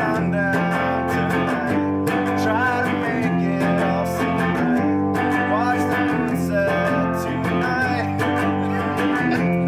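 Strummed acoustic guitar playing a song, steady chords with a few sliding higher notes.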